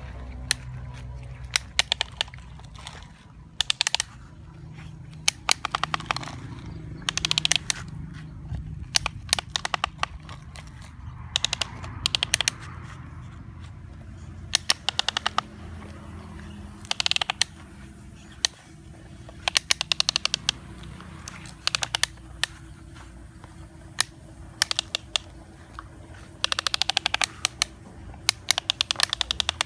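Plastic toy excavator worked by hand, digging sandy dirt and loading it into a toy dump truck: short bursts of rapid clicking every second or two as the arm and bucket are moved.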